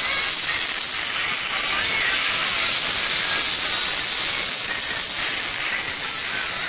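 Steady, loud hiss with no clear tones or beat.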